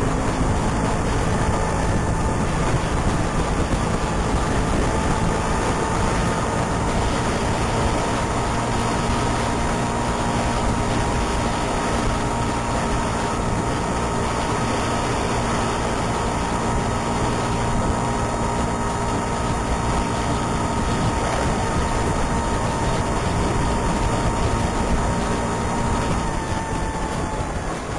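Vespa scooter fitted with a siwingan whistle, running with the whistle giving a steady, siren-like held tone over the engine noise. Near the end the tone sags in pitch and fades.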